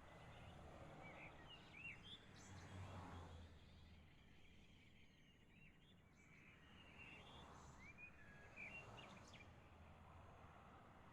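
Birds chirping faintly in two short bouts, about a second in and again about seven seconds in, over a low background hiss.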